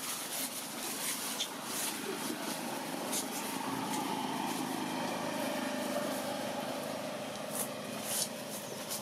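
A motor vehicle's engine running steadily for several seconds as it passes, its pitch dropping a little about halfway through.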